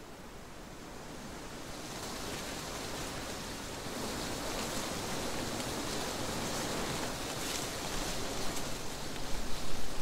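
Wind blowing through trees with a steady rustle of leaves. The gust swells over the first few seconds, then holds, and near the end it turns uneven with stronger buffets.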